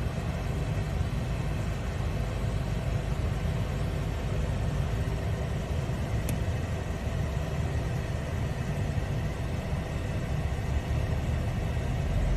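Car engine idling steadily, a low even hum, with one brief click about six seconds in.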